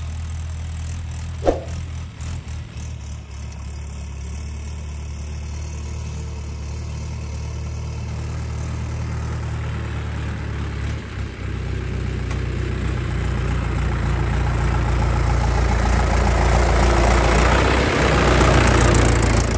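Diesel engine idling steadily, growing louder over the last several seconds as the Mahindra tractor's engine comes close. There is a brief blip about a second and a half in.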